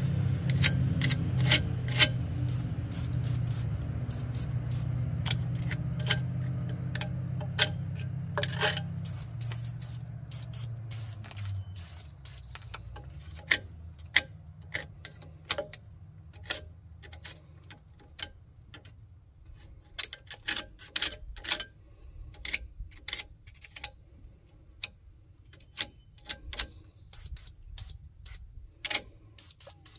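Scattered sharp clicks, taps and rubbing of metal parts and tools being handled during parking brake cable work. Under them, a low droning hum fades away about twelve seconds in.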